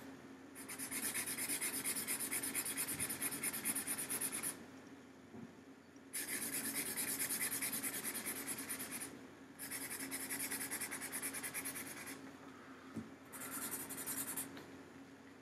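Marker scribbling back and forth on paper to colour in a shape, in four spells of quick strokes with short pauses between.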